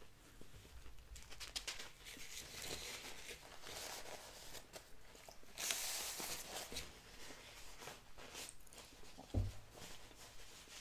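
Paper napkin rustling and crinkling as it is wiped across the mouth, loudest about halfway through. A single soft thump comes near the end.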